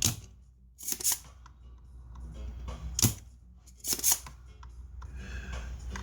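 Spring-loaded desoldering pump (solder sucker) clicking as it is cocked and fired to clear solder from circuit board holes: a handful of sharp snaps, some in quick pairs, about a second apart.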